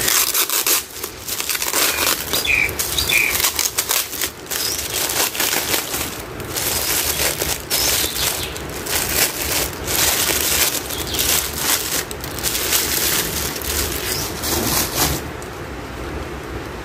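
Plastic wrapping crinkling and rustling as it is pulled off a plant's root ball and the plant is handled, with dense crackles throughout; it stops about a second and a half before the end.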